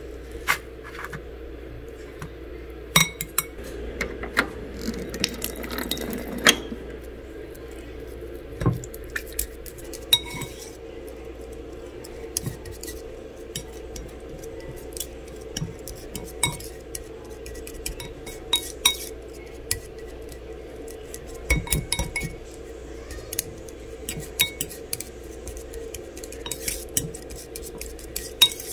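A plastic fork mashing and stirring soaked dog kibble in a bowl, tapping and scraping against the bowl in irregular sharp clicks. A steady low hum runs underneath.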